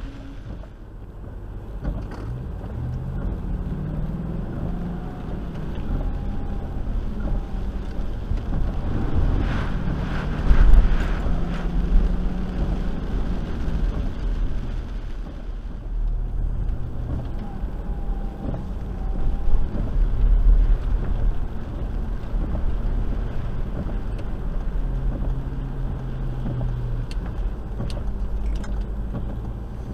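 Land Rover driving on a wet road, heard from inside the cabin: the engine runs with its pitch stepping up and down as it changes speed, over the rush of tyres on the wet surface. It swells louder about eleven seconds in and again near twenty.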